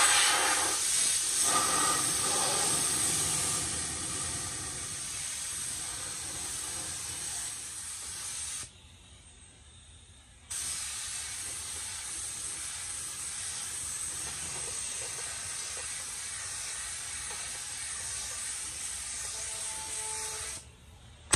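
Gravity-feed paint spray gun hissing steadily as compressed air atomises a coat of primer onto a car fender, in two long passes with a break of about two seconds in the middle.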